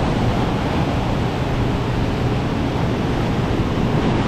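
Heavy storm surf breaking steadily, mixed with strong wind on the microphone.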